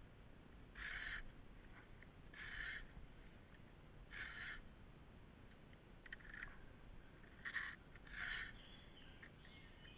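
Strokes of a PFERD Chain Sharp CS-X filing guide, which files the cutter and the raker together, rasping across a chainsaw chain. There are about six short strokes, one roughly every second and a half.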